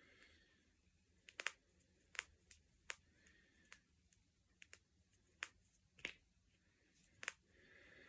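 Finger knuckles being cracked: a series of about eight sharp pops at irregular intervals, a couple of them coming as quick doubles.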